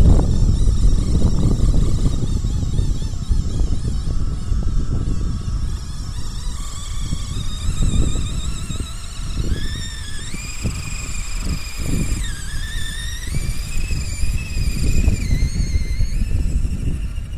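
Homemade RC tractor's small electric motor and WPL gearbox whining as it drives over sand. From about six seconds in the whine rises and falls in pitch in steps as the throttle changes, over a low rumble.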